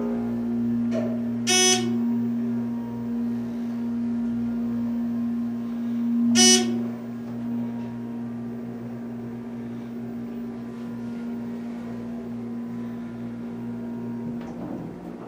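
ThyssenKrupp hydraulic elevator running: a steady low electric hum while the car travels, which cuts out near the end as the car stops at the floor. Two short electronic beeps sound, one about a second and a half in and another about five seconds later.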